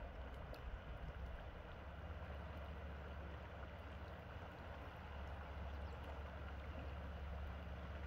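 The Salmon River flowing over a shallow, rocky bank: a steady rush of water, over a steady low rumble.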